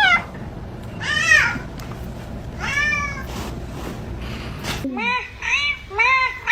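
Cat meowing. Two long, high meows come about two seconds apart, and then, over a quieter background, three shorter and lower meows in quick succession.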